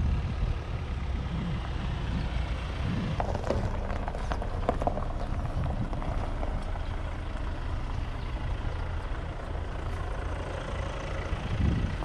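Kia Sportage arriving on a gravel campsite lot with its engine running: a low, steady rumble, with a few faint crackles a few seconds in.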